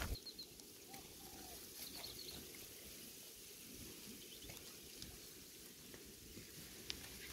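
Quiet outdoor background with a few faint, short high chirps in small clusters, near the start, about two seconds in and again a couple of seconds later.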